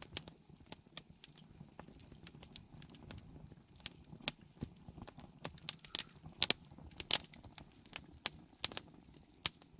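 Scattered sharp clicks and knocks at an uneven pace over a faint low background, the loudest about six and seven seconds in.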